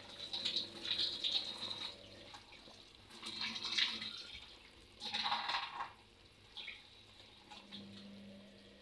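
Water splashing in a few short spells of about a second each, with quieter handling sounds between.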